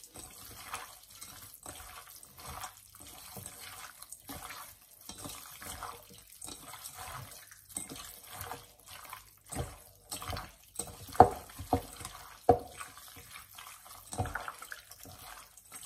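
Hands squishing raw shell-on prawns through a spice and olive-oil masala in a stainless steel bowl: an irregular run of wet squelches and smacks, with a few louder slaps in the second half.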